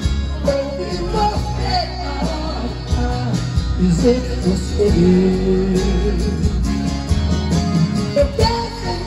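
Live sertanejo band playing with a male lead vocal singing over it, holding long drawn-out notes through the middle.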